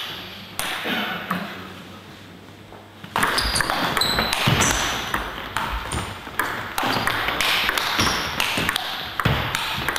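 Table tennis rally: the celluloid ball clicks sharply off rubber-faced paddles and bounces on the table. A few single knocks come first, then a quick run of hits starts about three seconds in.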